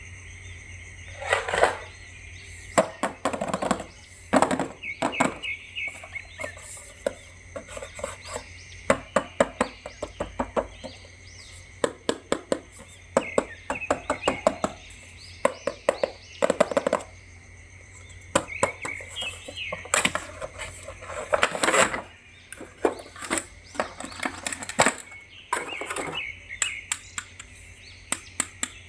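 Plastic action figure and its packaging being handled: irregular sharp clicks, taps and short crinkles, some in quick clusters. Steady thin high-pitched tones run underneath.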